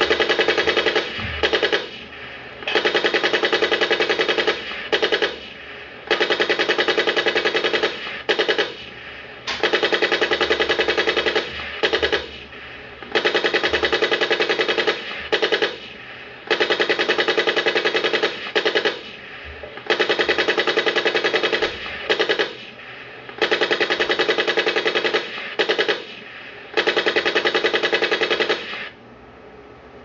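Machine-gun fire, a fast rattle in repeated bursts of about two seconds, most followed by a short extra burst. It stops about a second before the end.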